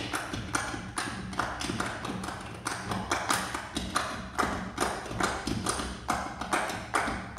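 Percussion ensemble playing a rhythmic piece of sharp hand-struck taps and claps, several strikes a second in an uneven, interlocking pattern.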